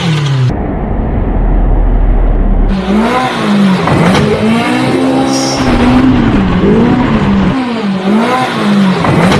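Off-road vehicle engine revving hard over and over, its pitch rising and falling about once a second. Before that comes a short low, rough rumble.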